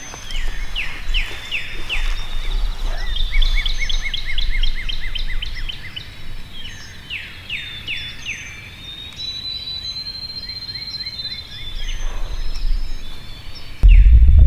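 Several songbirds singing in spring woods: repeated falling slurred whistles, a fast trill and a long high note, over a faint low rumble. A loud low rumble cuts in suddenly near the end.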